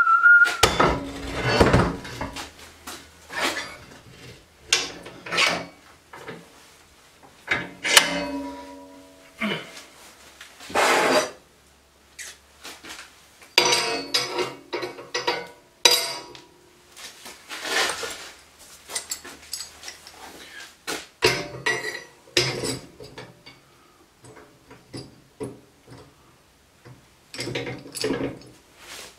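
Steel bars and plates of a homemade press frame clanking and knocking as they are handled and fitted together: irregular metal clinks and knocks, with one piece ringing briefly about eight seconds in.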